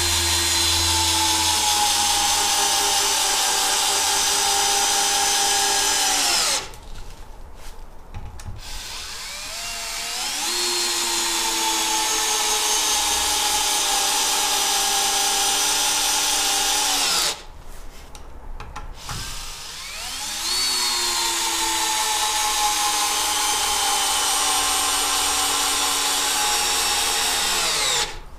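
Bosch GSR 10.8 2-Li cordless drill driver, in first gear, driving three 6 × 100 mm wood screws into a timber beam one after another. Each time the motor whine rises, sinks slowly in pitch as the screw bites deeper and loads the motor, then drops and stops, with short pauses between screws.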